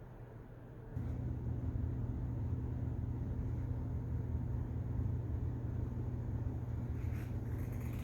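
A steady low machine hum that switches on suddenly about a second in and holds a constant pitch, with a brief rustle near the end.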